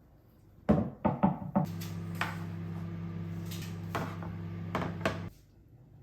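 A few quick knocks, then an electric kitchen appliance hums steadily for about four seconds, with light clicks over it, and cuts off suddenly.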